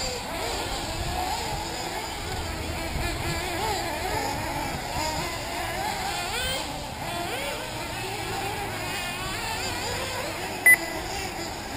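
Several 1/8-scale nitro RC buggy engines whining around the track, their pitch rising and falling as they rev and back off. A short, loud electronic beep near the end.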